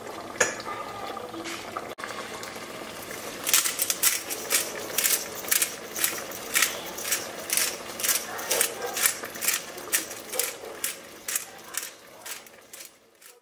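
A hand-twisted spice grinder ground over a pot, giving a regular run of sharp ratcheting clicks about two a second that fade near the end. Before it starts there is a steady low hiss.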